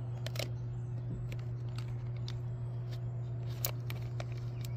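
A few light clicks and taps of small plastic toy parts being handled: a toy figure being fitted onto a plastic flower-petal display stand. A steady low hum underneath.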